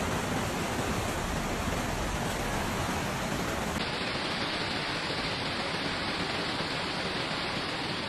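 Swollen floodwater rushing and churning in a steady, even noise, with an abrupt shift in tone just before four seconds in.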